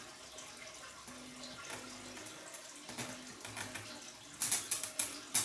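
Jarguar PA-203A amplifier playing through its speakers: hiss with short bursts of low hum, then a run of loud crackles about four and a half seconds in, as its input is touched by hand to inject a test signal.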